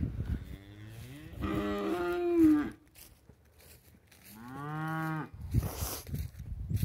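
Cattle mooing: two long calls, the first rising and swelling before it breaks off about three seconds in, the second an arched call a little after four seconds.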